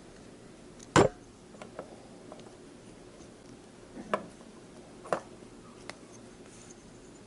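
Tools and metal parts being handled during a motorcycle starter rebuild: a few separate sharp clicks and knocks. The loudest comes about a second in, with lighter taps after it and two more clear knocks around four and five seconds.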